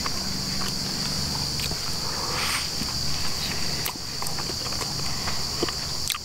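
Steady high-pitched drone of insects in the woods, with scattered soft clicks of a man chewing a sandwich.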